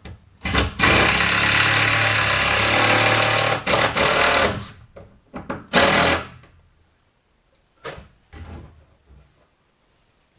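Power driver running a screw into wooden framing: one long run of about three seconds, then two short bursts to seat it, followed by a few light knocks.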